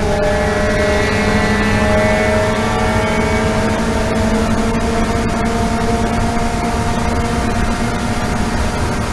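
Toyota GT86 race car's flat-four engine heard from inside the cockpit, pulling at full throttle in fifth gear. Its pitch rises slowly as the car gains speed, then levels off near the end, over steady road and wind noise.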